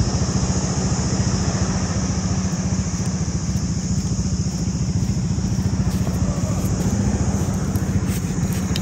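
An engine idling steadily, a rapid even putter with a low hum.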